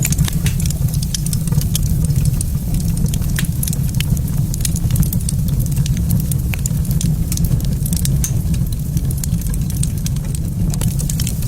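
Wood fire in a fireplace crackling, with many small sharp irregular pops over a steady low rumble.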